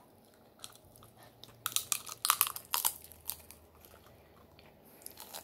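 Tortilla chips from a box of nachos being bitten and chewed, a run of sharp crunches about one and a half to three seconds in, with fainter chewing crunches around them.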